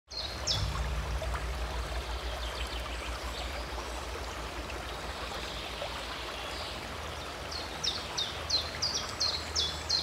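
Nature ambience: a steady rush of running water, with a bird giving short downward chirps, about four a second, over the last few seconds.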